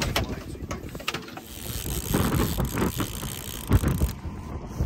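Fishing reel being cranked to bring in a hooked salmon, its gears and clicker making quick ratcheting clicks.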